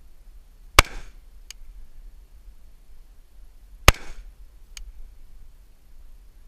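Rifle shots fired from a barricade, two about three seconds apart with a third at the very end, each a sharp crack with a short echo. A faint distant click follows each shot less than a second later.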